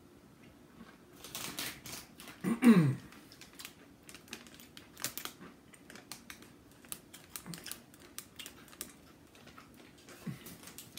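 Close-up crunching as a mouthful of fried, Flaming Hot Cheeto-crusted soft-shell crab sandwich is chewed: many small crisp cracks, the shell and crust breaking. About two and a half seconds in there is a short 'mm' of the voice falling in pitch, the loudest sound.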